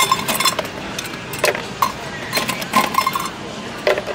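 A stainless steel cup scooping ice cubes from a foam box: irregular clinks and rattles of ice against metal, with a few sharper clinks spread through.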